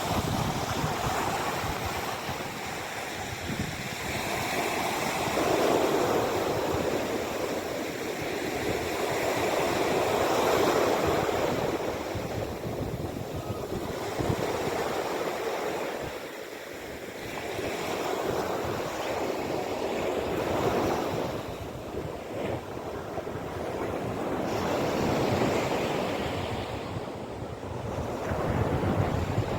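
Mediterranean sea waves washing onto the shore, the surf rising and falling in slow surges every few seconds.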